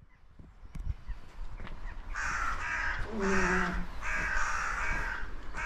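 A crow cawing repeatedly: a series of harsh caws starting about two seconds in and going on to the end.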